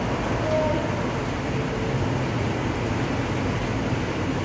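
Heavy rain falling steadily, splashing on wet pavement: a constant, even hiss.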